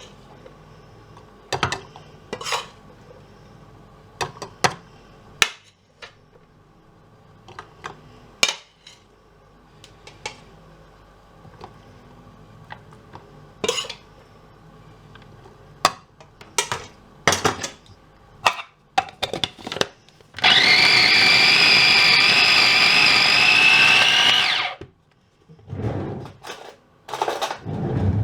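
Scattered knocks and clatter, then about twenty seconds in a small electric blender's motor runs steadily for about four seconds, blitzing the cooled cooked chicken livers, bacon and onion, and cuts off sharply; more knocks follow near the end.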